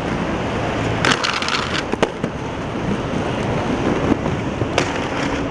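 Aggressive inline skates rolling on concrete. About a second in comes a short scraping grind with clicks, as the skate frames slide along a concrete ledge. Sharp clacks follow about two seconds in and again near the end.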